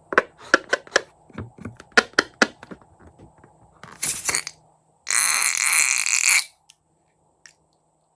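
Crunchy slime crackling and popping as it is handled, a quick run of sharp clicks, then a short and a longer burst of hissing noise about four and five seconds in.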